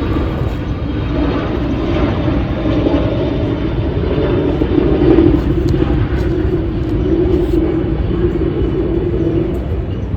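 Steady loud low rumble with a wavering hum that fades out near the end.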